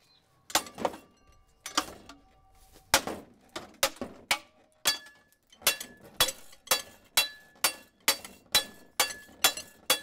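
Repeated sharp clanking strikes of a metal shaft against the spinning blades of a Lucci Air Futura 48-inch ceiling fan, about twenty in all, spaced unevenly at first and then coming quicker and more regularly from about halfway through. Several strikes leave a brief metallic ring.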